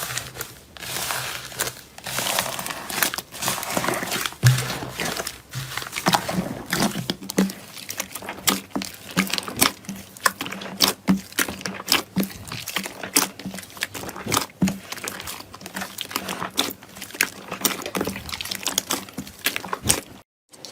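Slime being squeezed and poked by hand: a quick, continuous run of sticky clicks and small pops with a crinkly crackle, cut off briefly near the end.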